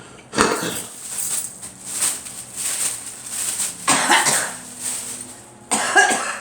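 A girl coughing in fits: a long run of coughs starting about half a second in, then two more bouts, one about four seconds in and one near the end.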